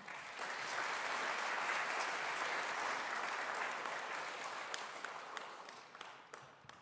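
Congregation applauding, swelling quickly and holding, then fading out over the last couple of seconds with a few scattered last claps.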